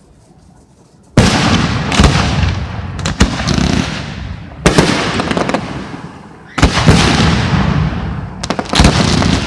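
Fireworks display shells bursting overhead: after a quiet first second, a sudden loud bang, two more big bursts later on and a quick run of sharp cracks near the end, each burst trailing off.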